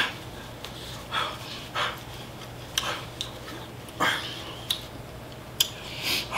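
A woman panting, with a series of short hard breaths out through the mouth, from the burn of very spicy chicken. A few small sharp clicks come between the breaths.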